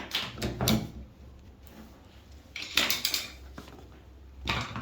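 Hard objects clattering and knocking as they are handled: a few quick knocks near the start, a longer clatter about three seconds in, and one more knock near the end.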